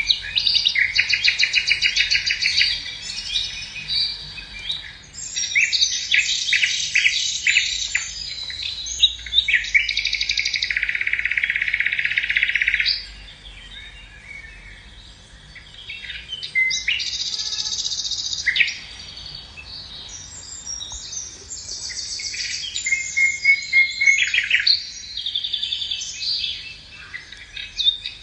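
Songbirds singing: rapid high-pitched chirps and trills follow one another almost without pause, quieter for a few seconds in the middle.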